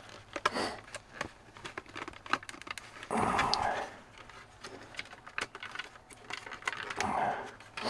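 Small scattered clicks and taps of a thin screwdriver working at a plastic dash light panel and its circuit board, with two short, louder soft noises about three and seven seconds in.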